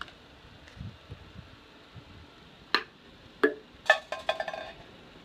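A ping pong ball bouncing twice with sharp taps, then dropping into a small metal cup, where it rattles and clinks with a short metallic ring.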